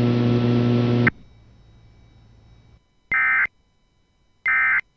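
Emergency Alert System end-of-message data bursts: two short, identical digital warbling chirps about 1.3 seconds apart, marking the end of the alert. Before them, a steady hum cuts off about a second in.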